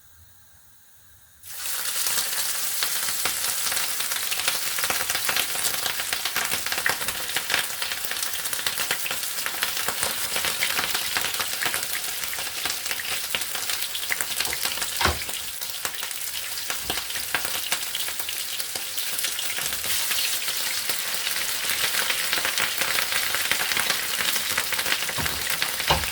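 Dormer sausages sizzling as they fry in a pan. The sizzle starts suddenly about a second and a half in, then runs steadily, with a single knock about halfway through.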